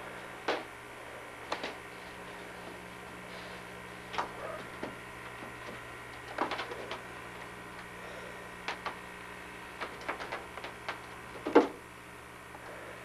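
A kitten playing with a broccoli floret on carpet: irregular light taps and knocks, about a dozen, with a louder knock near the end, over a steady low hum.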